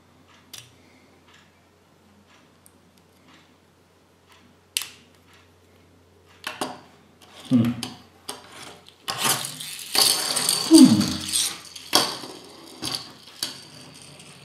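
Small plastic parts of a Kinder Surprise toy motorbike being fitted and snapped together by hand: scattered light clicks at first, then from about halfway louder clicking, creaking and scraping of plastic.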